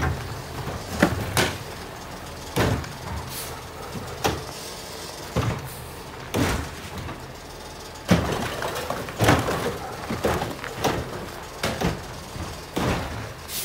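Garbage truck with a Curotto-Can automated cart arm: the engine runs steadily under a string of sharp clanks and bangs from the arm and carts, about one every second. The loudest bang comes right at the start as an emptied cart is set back down.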